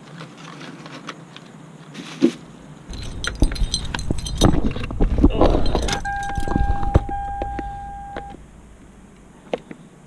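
Keys jangling and clicking as a key is worked into a Toyota Camry's ignition switch, with low handling knocks. About six seconds in, a steady electronic beep sounds for roughly two seconds.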